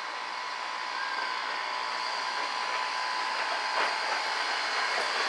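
Steam locomotive approaching slowly: a steady hiss of steam with a thin ringing tone, growing louder throughout, and a few light clicks near the end.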